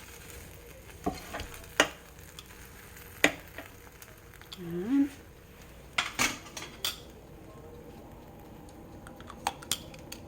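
Barbecued meat being turned on an indoor grill pan: several sharp clinks and clatters of a metal cooking utensil against the pan over a faint steady sizzle.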